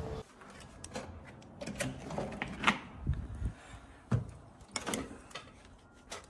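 Scattered light clicks and knocks of small objects being handled, over quiet room noise.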